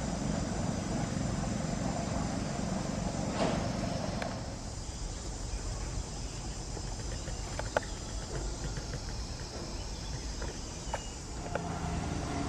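Steady outdoor background noise with a low rumble, insects shrilling high up, and a few faint clicks in the second half.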